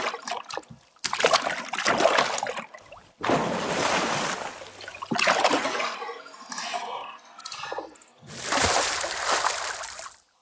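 Water splash sound effects: a series of about five splashing, sloshing bursts, each a second or so long, the last and longest ending abruptly near the end.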